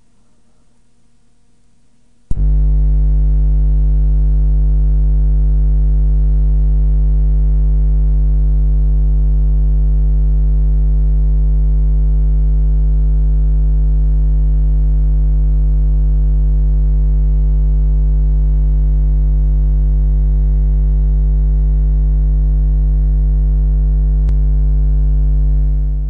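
A loud, steady buzzing hum with many overtones starts abruptly with a click about two seconds in, after a short stretch of faint hiss. It holds unchanged without any beat or variation, then fades at the very end.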